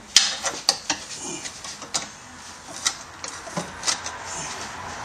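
Pry bar clinking and knocking against the exhaust hanger while a rubber exhaust hanger isolator is pried off, in irregular sharp metallic clicks and taps.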